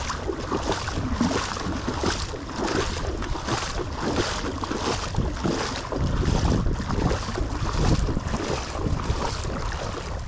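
Footsteps wading through shallow floodwater on a paved road, each step a splash in a steady walking rhythm, with wind rumbling on the microphone.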